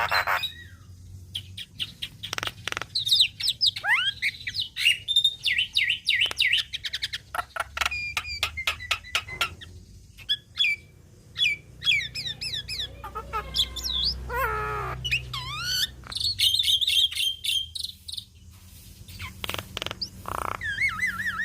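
Javan myna (jalak kebo) singing in full voice: a varied, rapid medley of clicks, sliding whistles and chattering notes, with a lower, harsher falling call about two-thirds of the way through.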